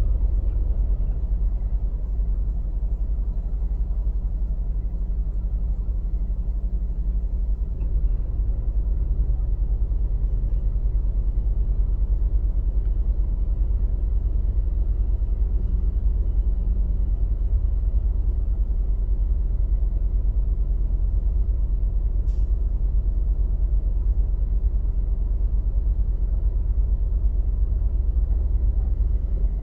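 Excavator's diesel engine running steadily, a deep, even rumble, with one brief click about 22 seconds in.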